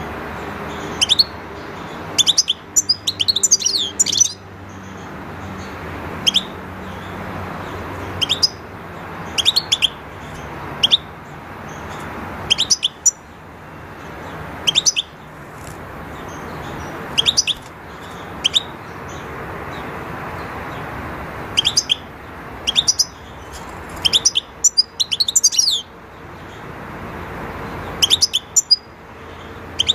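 European goldfinches calling: short, high, sharp chirps in scattered bursts every second or two, over a steady background hiss.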